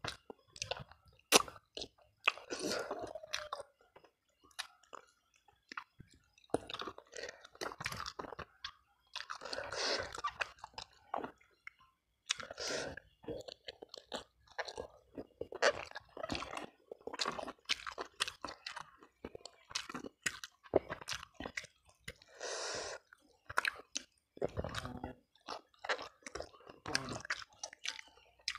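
Close-miked chewing and lip-smacking of a person eating tender boiled chicken by hand, an irregular run of wet mouth clicks and smacks, with a sharp louder click about a second in.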